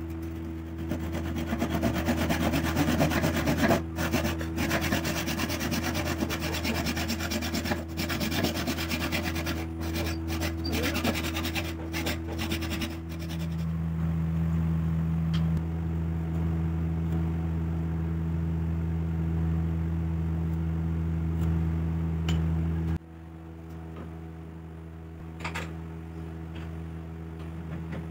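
Handsaw cutting through a wooden strip in quick back-and-forth strokes for roughly the first half. A steady low hum sounds underneath and stops abruptly about two-thirds of the way through.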